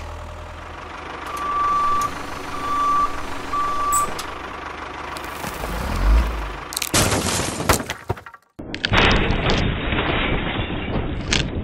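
A vehicle reversing alarm beeping three times, each beep about half a second long, over a low rumble. About six seconds in there is a low thud, followed by loud stretches of rough, clattering noise.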